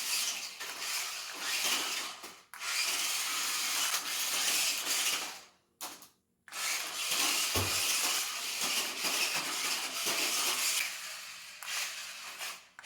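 BEZGAR TD203 RC stunt car's small electric drive motors whirring and its rubber tyres scrubbing on the ground, in runs of a few seconds broken by brief stops, the longest about six seconds in.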